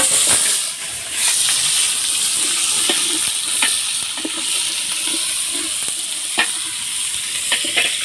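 Onions sizzling as they fry in hot oil in a pan. The sizzle starts suddenly, as loud as it gets, then stays steady, with a few sharp clicks from a utensil stirring against the pan.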